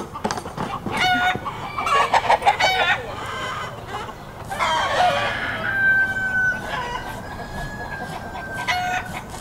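Chickens clucking and a rooster crowing, with one long drawn-out crow in the second half.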